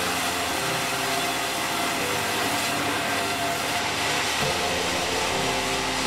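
Sawmill machinery running steadily: a continuous drone from the saw and its drive, with a few steady tones held through it.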